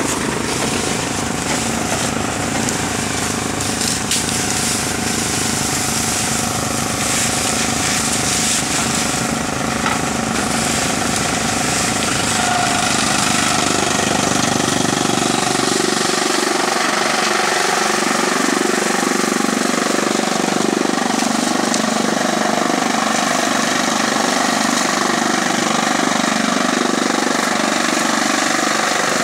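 Tractor-driven chaff cutter running steadily, its blades chopping dry straw and blowing the chaff out of the spout, over the tractor engine. The sound changes and grows slightly louder about halfway through.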